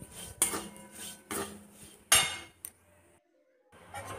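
Flat stainless-steel spatula scraping and knocking against a kadai while stirring semolina and grated carrot frying in a little ghee. The strokes come about every half second, the loudest about two seconds in, with a brief drop to silence about three seconds in.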